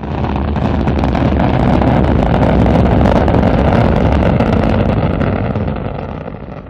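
Rocket engine sound effect: a loud, steady, deep rumbling hiss that builds over the first second or so and fades away near the end.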